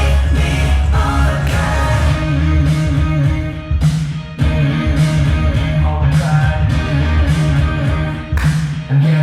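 Music with singing, a heavy bass line and a steady beat. The bass and beat cut out for about half a second around four seconds in, then return.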